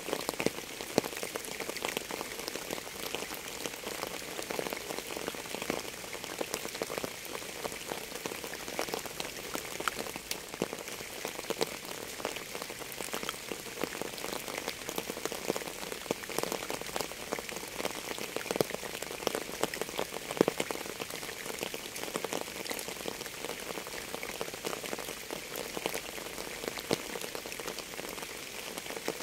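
Steady rain, a dense patter of drops with a few louder, sharper drop hits.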